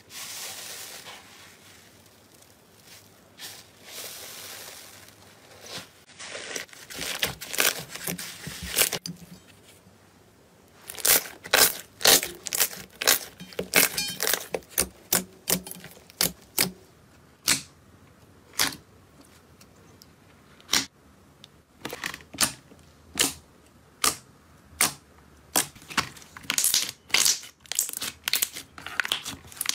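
Hands pressing, stretching and squeezing slime. At first there is a soft crackling hiss, then a long run of sharp pops and clicks, some in quick clusters and others spaced about a second apart.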